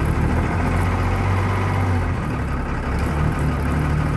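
Old bus's diesel engine running just after a cold start, held a little above idle on the accelerator; its speed dips about two seconds in and picks up again near the end.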